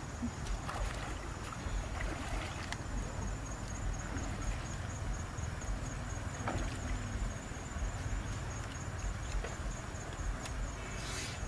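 Steady low rumble of wind on the microphone over open-air background noise, with a faint, rapid high-pitched ticking from about three seconds in.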